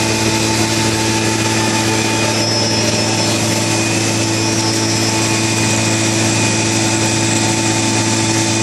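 Yuan Lung YL-15302-R+B CNC wood router running, a loud, even machine noise with several steady tones held throughout.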